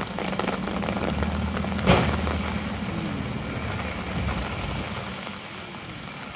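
Steady rain falling on wet pavement, with a low vehicle engine running nearby for the first few seconds and fading away about four and a half seconds in. A single sharp knock about two seconds in.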